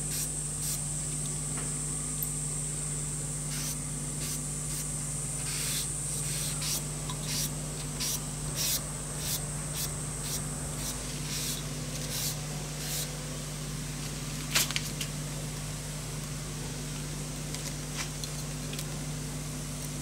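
Cloth pad charged with shellac rubbed over a wooden stand in irregular short strokes, over a steady hum. One sharp knock past the middle.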